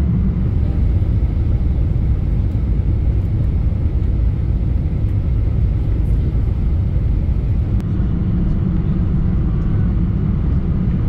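Cabin noise aboard a Boeing 747-400 airliner: a loud, steady low rumble.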